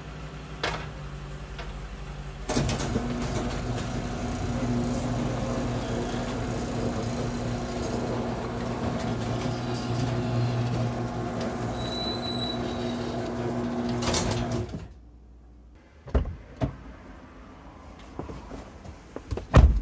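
Honda Pilot's 3.5-litre V6 engine running, first at a steady idle, then louder with a steady hum as the SUV pulls away; the engine sound cuts off abruptly a little before the end and gives way to a few sharp knocks inside the car.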